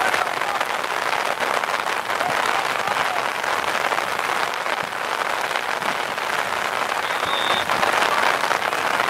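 Steady rain hiss, with a brief faint high whistle about seven seconds in.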